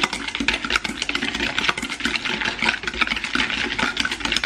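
Wire whisk beating egg yolks and sugar in a stainless steel bowl, the wires clicking and scraping rapidly and steadily against the metal, mixing until the sugar dissolves.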